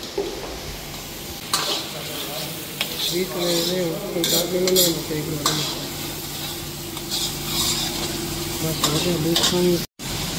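Food sizzling in a large karahi while a metal ladle stirs it, scraping and clinking against the pan every second or so.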